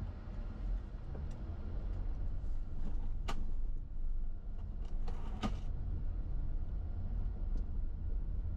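Steady low rumble of a car driving, with two sharp knocks, one about three seconds in and a longer rattling one a little after five seconds.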